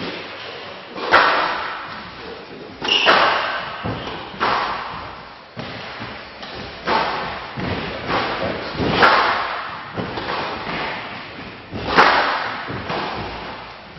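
A squash rally: the ball struck by rackets and hitting the court walls in a run of sharp, echoing smacks, one every one to two seconds, each ringing on in the hall.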